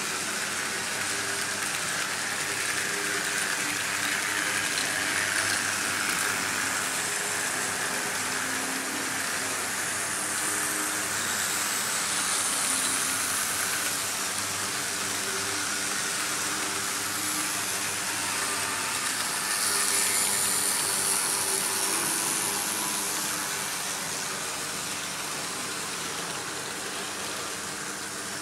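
Märklin H0 model trains running on metal M-track: a steady rolling rattle of wheels on the rails with the hum of the locomotive motors. It grows louder as a train passes close about two-thirds of the way in, then fades toward the end.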